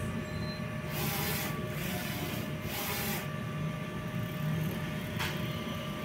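DTF (direct-to-film) printer running a nozzle check: a steady machine hum, with the print-head carriage making two short swishing passes in the first half and a single click near the end.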